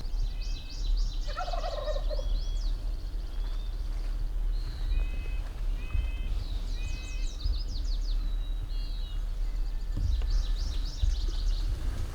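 A wild tom turkey gobbles once, a rattling call falling in pitch about a second in, over continual high-pitched bird chirping.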